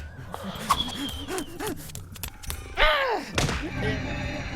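Cartoon sound effects: thuds and short pitched comic vocal sounds, with a longer falling tone about three seconds in.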